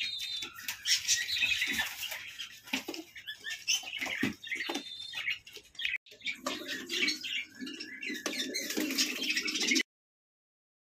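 Pigeons in a wire-mesh loft: high chirping calls, wing flaps and scrabbling clicks, with low cooing in the second half. The sound cuts off abruptly near the end.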